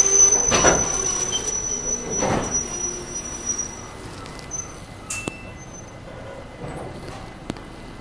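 Express passenger train braking to a halt on a bridge: a high steady brake squeal that dies away after about four seconds, with two heavy clunks in the first few seconds. The running noise sinks to a low rumble with a few small clicks as the train comes to a stop.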